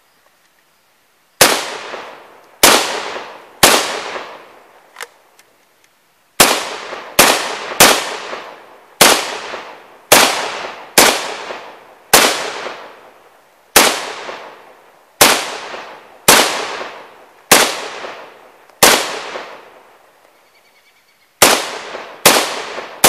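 WASR-10/63 AK-type rifle in 7.62×39mm fired semi-automatically: about eighteen single shots at an uneven pace of roughly one a second, each followed by a trailing echo, with a short pause near the end.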